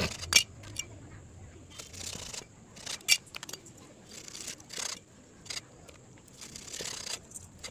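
A knife scraping and cutting a white pomfret while it is cleaned: a handful of short, sharp strokes a second or two apart.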